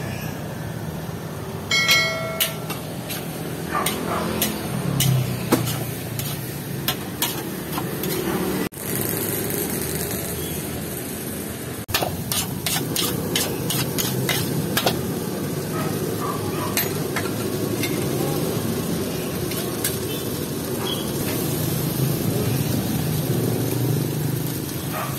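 A metal spatula clanging and scraping in a large wok while fried rice sizzles as it is stir-fried. Street traffic comes first, before the clanging starts.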